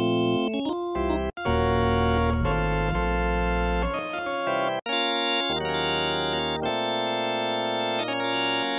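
Organ chords played on an organ patch from Native Instruments' Vintage Organs sample library: a progression of held chords, each lasting a second or so, with a couple of short breaks between them.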